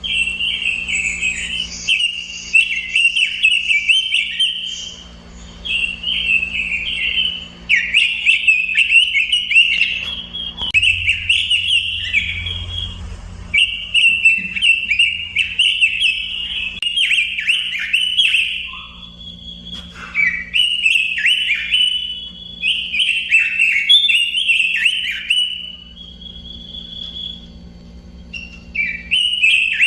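Pekin robin (red-billed leiothrix) singing a rapid warbling song in long phrases, with short pauses between them.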